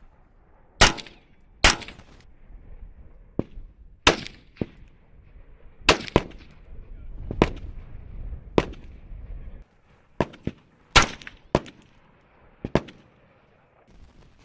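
Rifle shots on a firing range: about a dozen sharp single shots at irregular intervals, several of them in quick pairs as the shooters fire control pairs.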